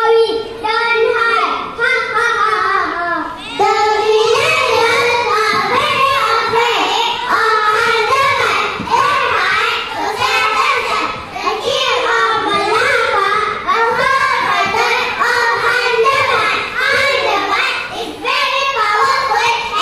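A group of young children's voices singing together in unison, loud and continuous.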